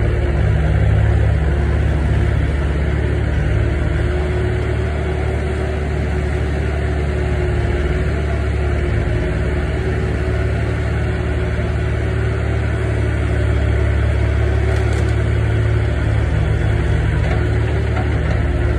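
Skid-steer loader's engine running steadily as the machine drives about and works, a continuous low drone with no sharp knocks.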